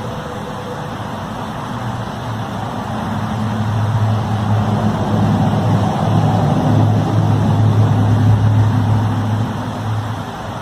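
A low, steady droning hum of unknown origin over a noisy background, swelling to its loudest about eight seconds in and easing off near the end: one of the recorded 'strange sounds' in the sky that are likened to trumpets.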